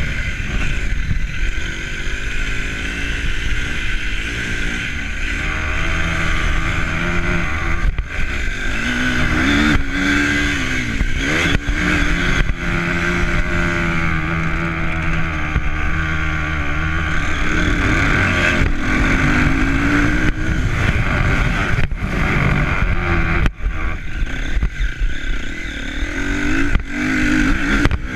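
A motor vehicle's engine running under way, its pitch rising and falling as the revs change, over a steady loud rush of noise.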